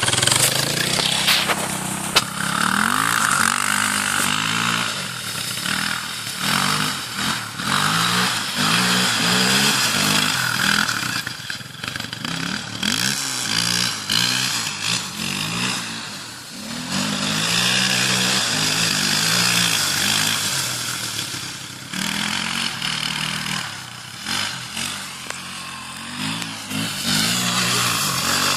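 Quadzilla 300 quad bike engine revving up and down over and over, its pitch rising and falling with the throttle as it is ridden.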